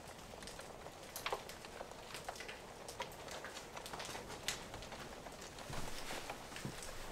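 Open fire crackling in a hearth: irregular sharp pops and snaps over a faint hiss, the loudest about a second in and again past the middle.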